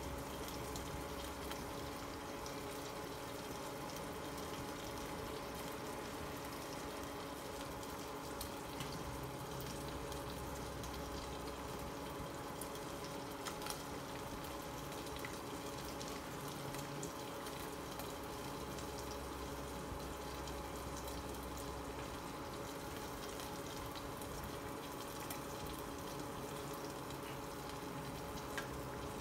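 Diced pork and garlic sizzling steadily in oil in a nonstick pan, with a steady hum underneath.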